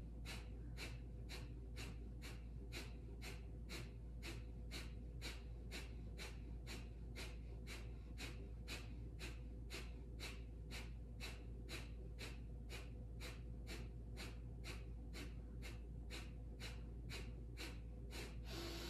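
Kapalabhati (fire breath): short, forceful exhalations through the nose at a steady pace of about two a second, with a longer, fuller breath right at the end.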